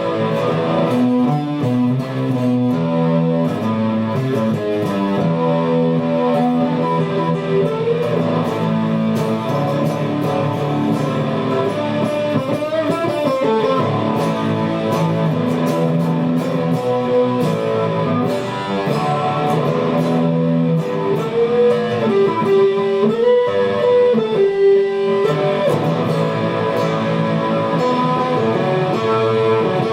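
Guitar music: sustained chords with a melodic line over them.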